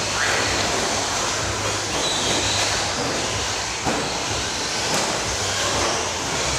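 Several 1/10 scale RC buggies and short course trucks racing around an indoor track: a steady mix of motor whine and tyre noise, with a short knock just before the four-second mark.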